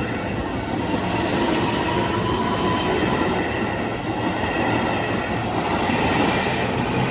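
Keihan 9000 series electric commuter train running past close by: a loud, steady rumble of wheels on the rails.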